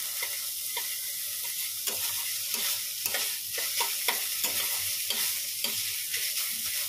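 Long-handled metal spatula stirring and scraping a vegetable mix in a stainless steel kadai, with repeated scrapes about twice a second over a steady sizzle of frying.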